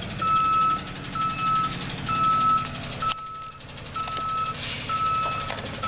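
Tow truck's reversing alarm beeping steadily, one even-pitched beep about once a second, as the truck backs up on an icy street.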